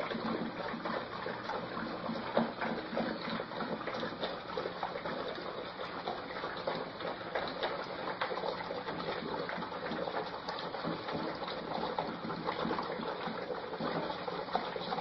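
A litter of Scottish terrier puppies lapping and slurping from a shared dish: a steady mass of small smacks and clicks from many mouths at once.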